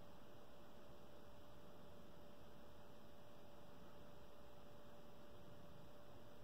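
Faint room tone: a steady hiss with one constant hum tone and no distinct sounds.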